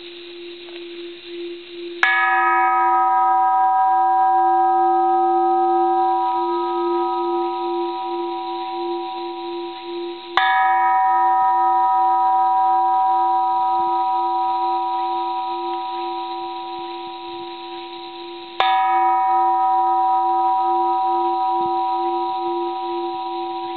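A bronze Japanese Buddhist temple bell is struck three times, about eight seconds apart. Each strike rings on with several steady tones; the higher ones die away within a few seconds and the middle ones fade slowly. Under them a low hum carries on and pulses slowly.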